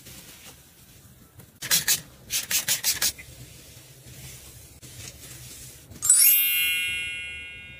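A few quick rubbing strokes of a cloth wiping a kitchen surface. About six seconds in comes the loudest sound, a bright shimmering chime sound effect that sweeps up and then rings out, fading over nearly two seconds.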